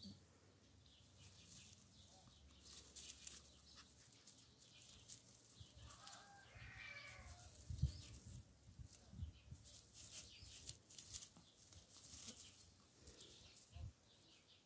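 Faint crackling rustle of dry grass as a kitten rolls and pounces in it, with a few low bumps. A short animal call comes about six seconds in.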